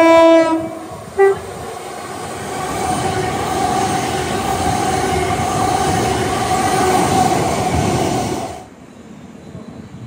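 Great Western Railway electric train's two-tone horn: the lower note ends just after the start, and a short higher toot follows about a second in. The train then passes at speed with a rising roar of wheels and a steady whine, which cuts off abruptly near the end.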